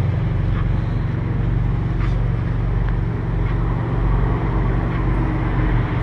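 A car engine running steadily, its sound mostly low-pitched and even throughout.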